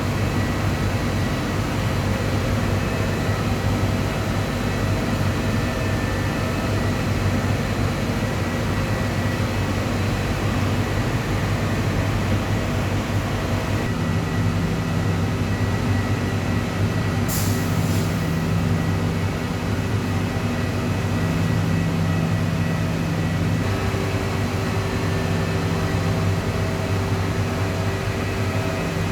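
Cyclonic furnace and heat-exchanger hot-air generator running, a steady machinery drone made of several low hums. A short hiss cuts in briefly about seventeen seconds in.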